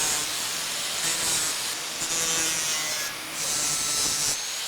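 Cedar wood being scraped by hand with an abrasive tool for fine detail work, in long rasping strokes about one a second.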